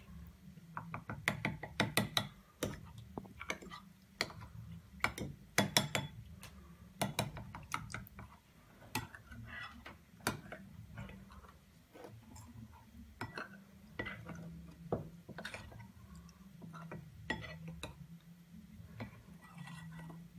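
Metal spoon clinking and scraping against a glass bowl while stirring custard powder into cold milk: irregular light ticks, busier in the first several seconds, then sparser.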